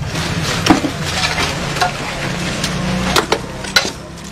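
Scattered sharp knocks and clatter of rubble and debris being dug through and moved by hand, over a steady low rumble of outdoor background noise.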